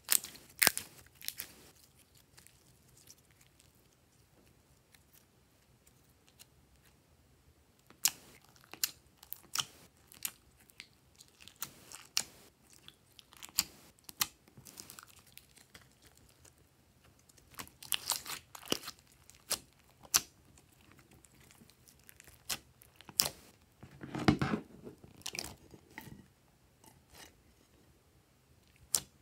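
Glossy slime being squished and poked by fingers, giving sharp, sticky clicks and pops in irregular clusters with quiet stretches between. A denser run of wet squelching comes about three-quarters of the way through.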